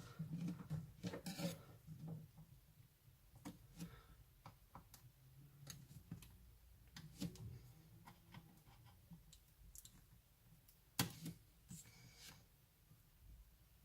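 Faint scattered clicks and light scraping of plastic and metal laptop parts being handled as a Fujitsu LifeBook U772 is taken apart, with one sharper click about eleven seconds in.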